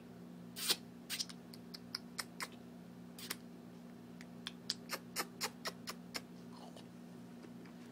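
Wet sucking and smacking clicks of an adult's mouth on a baby's thumb. The short smacks come at irregular intervals, a couple of dozen of them.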